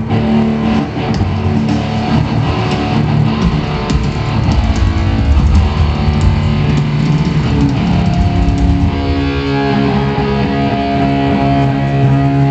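A rock band playing an instrumental jam, electric guitars strumming loud, sustained chords over bass and drums.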